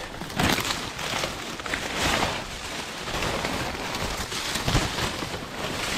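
Dry, dead corn leaves and stalks rustling and crackling against each other and the camera as someone pushes through the rows of a mature cornfield. The noise is continuous, with many small sharp crackles.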